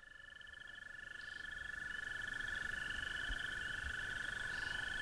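A chorus of frogs calling at dusk: a steady high trill with a pulsing, higher-pitched trilling over it, fading in over the first couple of seconds.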